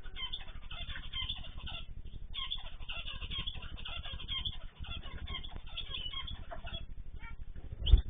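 Small cage birds in a mixed aviary chirping busily, many short overlapping calls with no break. A sudden loud thump comes just before the end.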